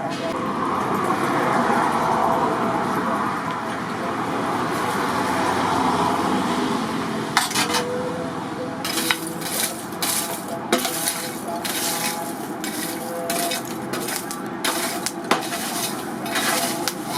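Metal clinking and tapping: irregular sharp metallic strikes, several a second, start about seven seconds in over a steady background hiss.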